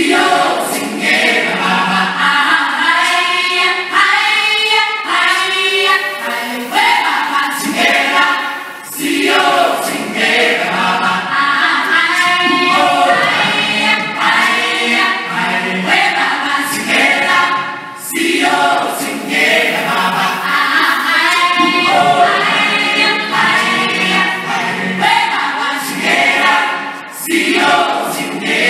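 A choir singing in full harmony, in long phrases that drop away briefly between them, about every nine seconds.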